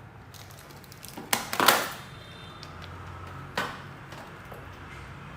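A few sharp clicks and knocks, like objects being handled and set down on a work surface: two close together about a second and a half in, the louder with a brief ring, and one more a couple of seconds later. A low steady hum lies beneath.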